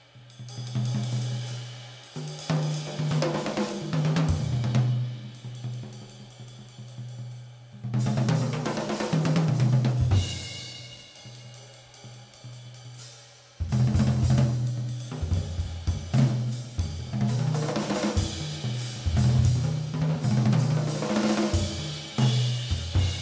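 Jazz drum kit played live and busily: cymbals, hi-hat, snare and bass drum, with low pitched notes beneath. It drops to a quieter passage about ten seconds in, then comes back suddenly and loud with crashes a few seconds later.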